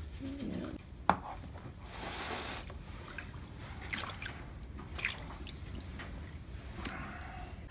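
Epsom-salt water splashing and dripping in a rubber tub used as a hoof soak, with a sharp knock about a second in and a few smaller clicks after.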